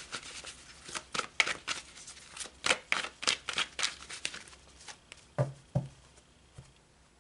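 Tarot deck being shuffled by hand: a quick run of card flicks and riffles for about five seconds, then two soft knocks as the deck is squared.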